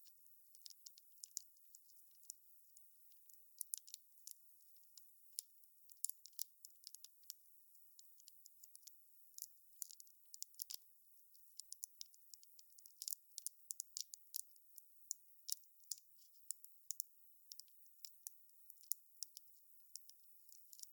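Faint crackling of a wood fire: irregular sharp snaps and pops, several a second, over a faint high hiss.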